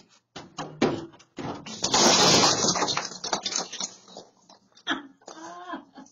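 A stepladder being handled at a front door: sharp knocks and clatter, with a loud scraping rush about two seconds in that fades over the next second or two.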